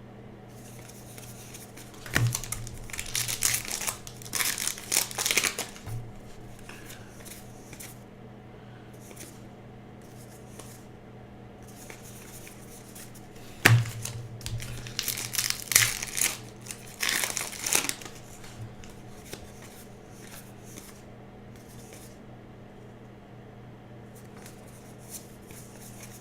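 Foil wrappers of 2018 Topps Heritage baseball card packs being torn open and crinkled, in two bouts of a few seconds each, over a steady low hum.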